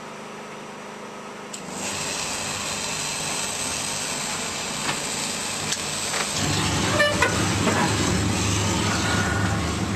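Vehicle noise that comes in about two seconds in and grows louder, with a low rumble, about six seconds in.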